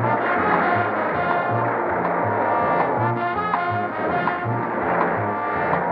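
Dramatic orchestral cartoon score led by brass over a low pulse repeating about twice a second.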